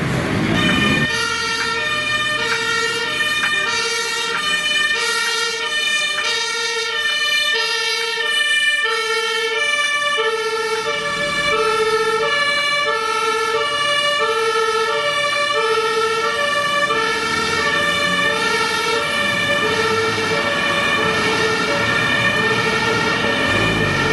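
German two-tone emergency siren (Martinshorn) on a Red Cross ambulance, alternating a lower and a higher tone about every half second, on a vehicle driving on an emergency call.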